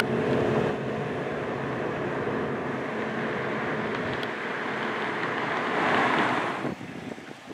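Street traffic noise: a steady rush of passing vehicles, swelling as one passes closer about six seconds in, then cutting off suddenly.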